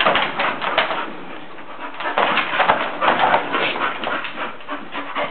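Blue-nose pit bull panting and whimpering as she moves about inside a wire dog crate, with scattered clicks and rattles.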